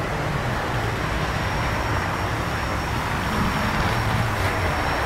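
Passenger train's rear car rolling past, a steady rumble of steel wheels on the rails with a low hum underneath.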